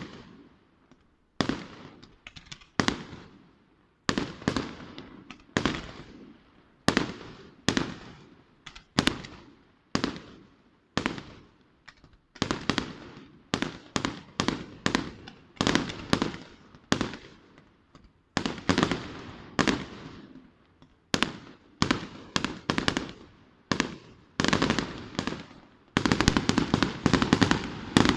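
Aerial fireworks shells bursting in steady succession, about one or two sharp bangs a second, each trailing off in echo. About 26 seconds in, a dense, rapid volley of bangs begins and keeps going.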